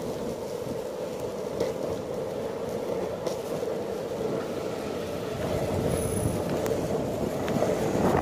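Skateboard wheels rolling over asphalt: a steady, dense rumble with occasional clicks, growing a little louder in the second half.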